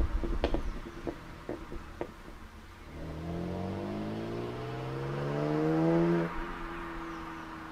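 BMW 330i's N52 straight-six with a BMW Performance exhaust and straight-piped midpipe, moving away. A few sharp exhaust pops on overrun fuel cut come in the first two seconds. Then the engine accelerates, its pitch climbing until about six seconds in, and drops to a steadier, fainter drone.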